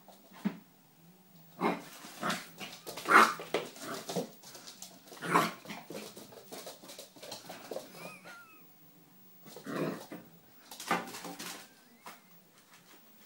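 Three-month-old poodle puppy yapping in play: a string of short, irregular yaps, loudest about three and five seconds in.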